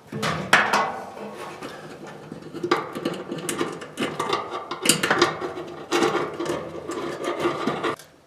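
A screw being driven in to fasten the ground wire on a Maytag dryer's motor bracket: a continuous run of mechanical working noise with several sharp clicks, stopping shortly before the end.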